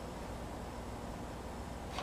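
Quiet room tone: a steady low hum with faint hiss, and no distinct events.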